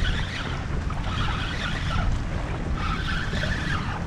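Wind rumbling on the microphone, with a swishing sound that comes back in spells of about a second, roughly every second and a half.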